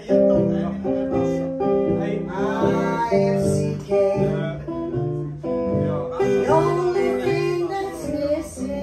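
Live duo: a woman singing over an archtop guitar playing chords. Her voice comes in phrases while the guitar runs on under it.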